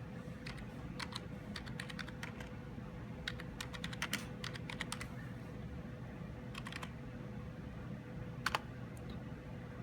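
Typing on a computer keyboard: a run of quick key clicks over the first five seconds, a few more a little later, and one louder keystroke near the end, over a steady low hum.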